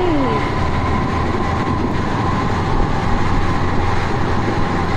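A vehicle running steadily, with a continuous low rumble and a thin steady whine above it.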